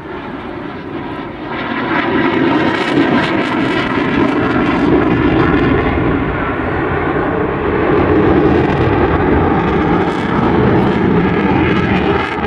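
Eurofighter Typhoon's twin EJ200 turbofan engines, a jet roar from a fighter flying its display overhead. The roar swells about two seconds in and stays loud.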